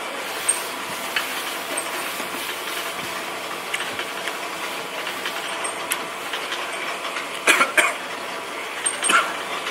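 Chewing on crispy roast pork belly, the crackled skin giving short sharp crunches now and then, loudest as a pair about three quarters of the way through. A steady background noise runs under it.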